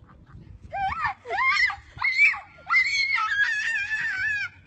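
A young child screaming: four high-pitched shrieks that bend up and down in pitch, the last one held for nearly two seconds.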